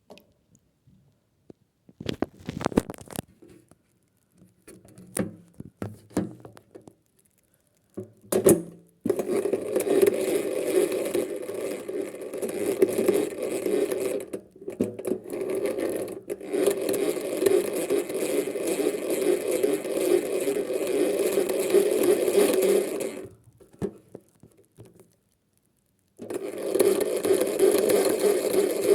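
Small electric motor of a toy Hoovermatic twin-tub washing machine running with a steady hum. It cuts out for a moment about halfway, then stops for a few seconds near the end before starting again. Before it starts there are a few scattered clicks and knocks of handling.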